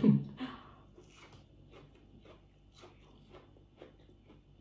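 A person chewing food close to the microphone: soft, irregular crunchy clicks a few times a second, after a last word at the very start.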